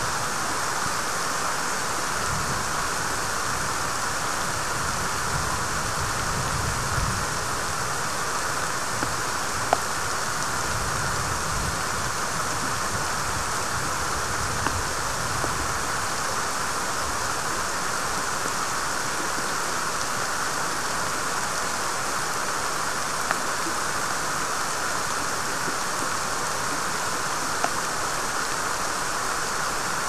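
Heavy rain falling steadily on a pine forest, an even hiss, with gusts of wind rumbling low in the first half and a few sharp single ticks of drops landing close by.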